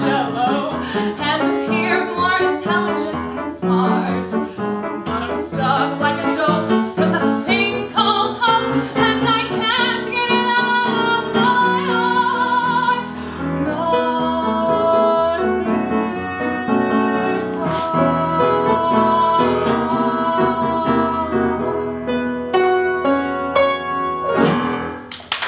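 A woman singing a musical-theatre song with live piano accompaniment, holding long notes in the second half as the song builds to its close. The song ends just before the end.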